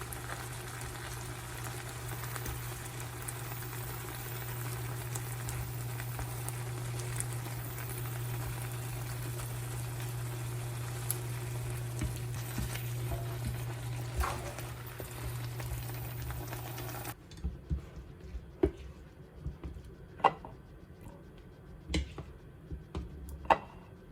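Steady hiss and low hum of food cooking on a stove, cutting off suddenly about seventeen seconds in. Scattered light clinks and taps of kitchenware follow.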